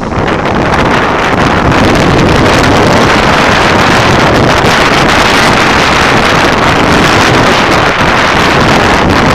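Wind rushing over the microphone of a handlebar-mounted camera on a moving motorcycle, a loud, steady rush. It grows louder over the first second and a half and then holds steady.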